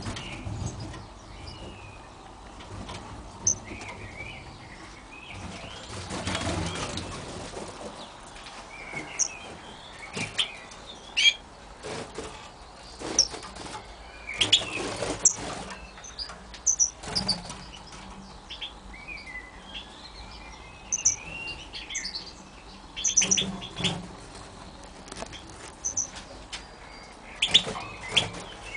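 Caged European goldfinches calling in short, high chirps and twitters, broken by several brief bursts of wing flapping.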